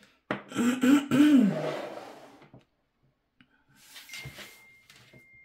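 A person's long breathy voiced exhale, like a drawn-out sigh, lasting about two seconds with its pitch rising and then falling. Faint rustling follows near the end.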